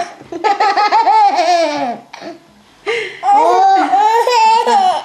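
People laughing hard in two long high-pitched bouts, with a short lull about two seconds in.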